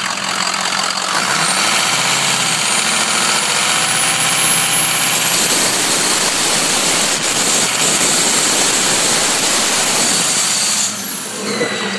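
V8 diesel engine running with its variable-geometry turbo commanded up, the turbo giving a high-pitched squealing whistle that slowly rises in pitch and cuts off near the end. The mechanic takes the squeal for a turbo issue.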